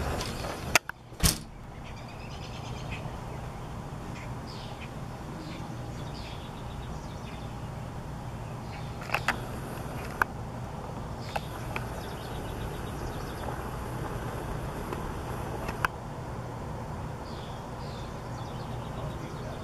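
Steady low rumble of road traffic, with a few faint bird chirps and several sharp clicks scattered through.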